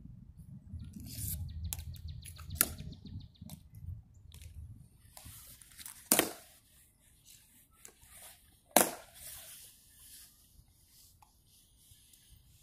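Sharp clicks of ceremonial guards' metal-tapped shoe heels striking the stone plaza as they march and come to attention: three loud ones a few seconds apart, among fainter steps and ticks. A low rumble fills the first few seconds.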